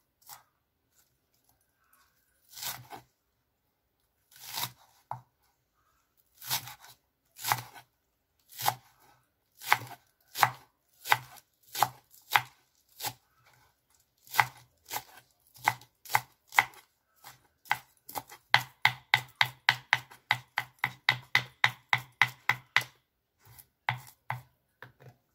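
Large kitchen knife chopping green onions finely on a wooden cutting board: single chops a second or two apart at first, picking up to a quick, even run of about four or five chops a second in the last part.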